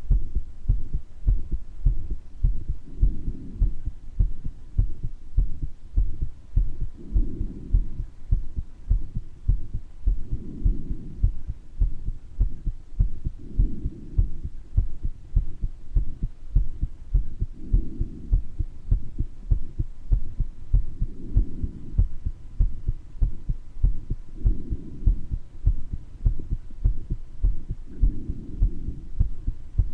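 A person's heart beating steadily, recorded at the chest: a rhythmic train of low lub-dub thumps carrying a heart murmur. About every three and a half seconds a soft swell of breath sound rises over the beats, from a chest with mild bronchitis.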